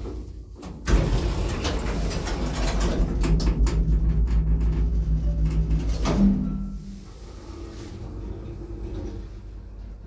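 The sliding car doors of a 1980s Končar traction lift shut with a bang about a second in. Several seconds of loud rumbling and rattling from the lift's machinery follow, then a clunk about six seconds in, then a quieter steady hum.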